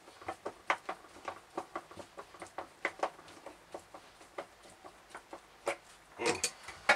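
Irregular light clicks and taps of gloved hands working the plastic half-ball and shaft parts inside a VacuFlush vacuum toilet bowl, with a louder clatter of knocks near the end ending in one sharp click.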